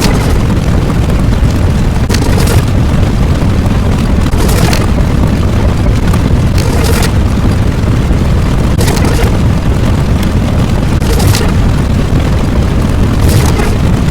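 Loud, continuous explosion-like rumble, a sound effect, with a short hissing burst about every two seconds.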